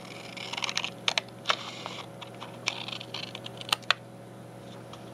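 Scissors cutting thick paper paint-sample cards: several short, crisp snips with a few sharp clicks, stopping about four seconds in.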